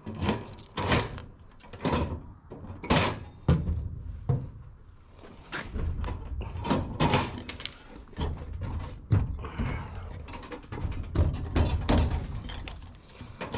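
Steel drawers of a stainless steel roll cabinet being slid and pushed shut, a series of knocks and thuds with a short sliding run about two-thirds of the way through.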